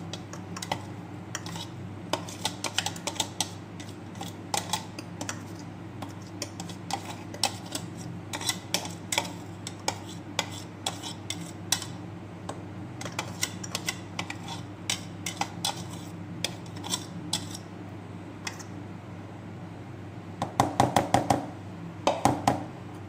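A spoon scraping and clicking against a clear plastic container as crushed green chili and onion paste is scooped into a plastic bowl of mashed potato, with a quick run of louder taps near the end, over a steady low hum.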